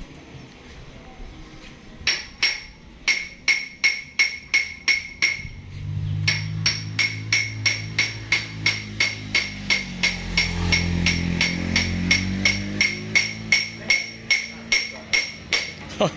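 Hammer blows on metal, evenly spaced at about three a second, each with a short ringing tone; they start about two seconds in. From about six seconds in, a low hum sounds beneath the strikes.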